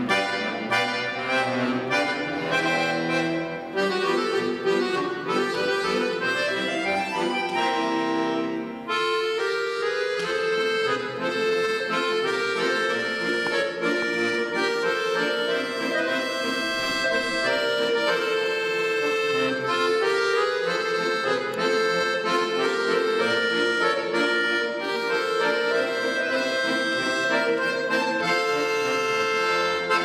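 Scandalli piano accordion played solo: quick runs of notes in the first several seconds, climbing upward just before a brief dip, then a melody over a held lower note.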